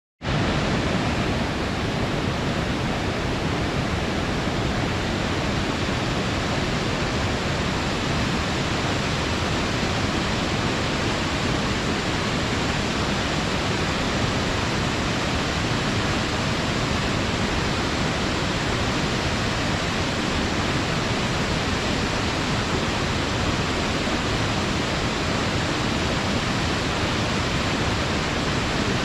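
Steady rushing of a mountain stream and small waterfall, an even, unbroken water noise.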